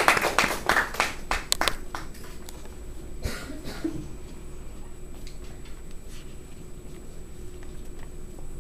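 Small audience applauding, the clapping thinning out and stopping about two seconds in, then quiet room tone with a low steady hum.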